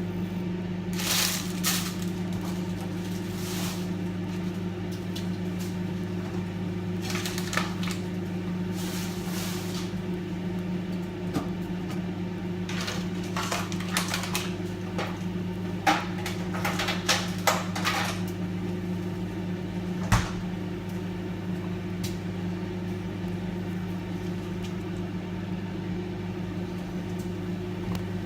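Microwave oven running with a steady low hum while heating sausage, with scattered crackles and pops. The hum stops just before the end.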